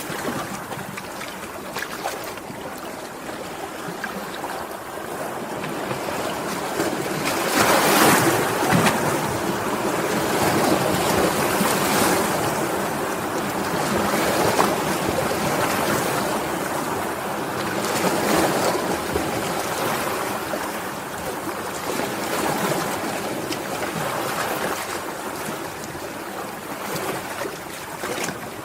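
Sea waves washing and breaking in a continuous rush, swelling and ebbing every few seconds; the strongest surge comes about 8 seconds in.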